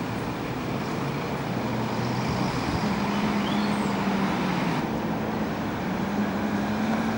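City buses' diesel engines and street traffic running steadily below, the low engine note stepping up in pitch about three seconds in and again near six seconds as a bus accelerates through its gears.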